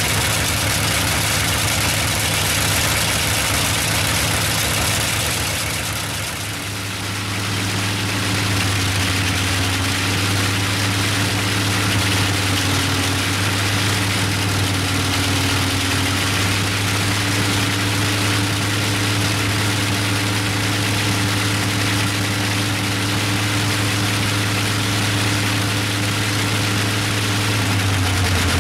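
Bristol Hercules fourteen-cylinder, double-row sleeve-valve radial aero engine running steadily with its propeller turning, a deep even drone. The sound dips briefly about six seconds in, then carries on steady.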